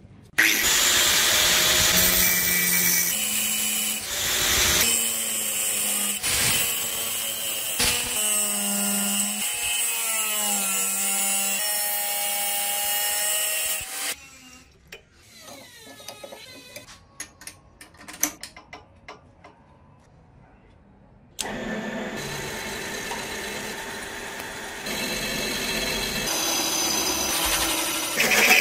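Angle grinder cutting teeth into a steel blade, its whine sliding down in pitch as the disc bites, then stopping abruptly about halfway through. After a quieter stretch with scattered small ticks, a drill press starts drilling into steel plate and runs steadily, getting louder near the end.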